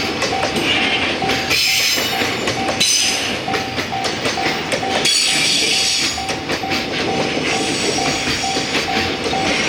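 Freight train wagons rolling past, their wheels clacking over the rail joints, with several bursts of high wheel squeal. A steady tone pulses a few times a second throughout.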